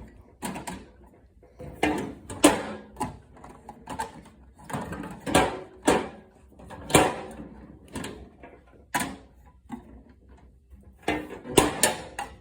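Irregular clicks, knocks and rattles of hand tools and their cases being handled and set down, the loudest knocks about two and a half, seven and eleven and a half seconds in.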